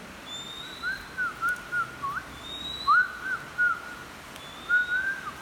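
Three runs of short, clear whistled notes, each note arching up and down in pitch. Behind them, a faint thin rising note comes back about every two seconds.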